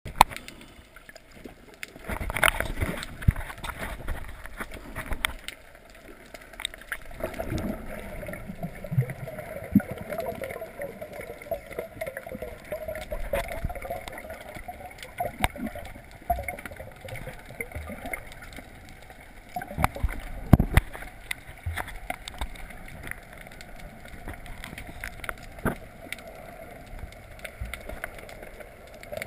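Muffled underwater gurgling and sloshing picked up by a snorkeler's hand-held camera, with irregular knocks every few seconds.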